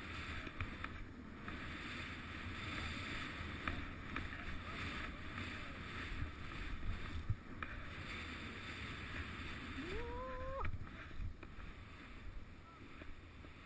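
Skis sliding through deep powder snow with a steady swish, mixed with wind rushing over the microphone. About ten seconds in, a short shout rises in pitch and holds briefly before cutting off.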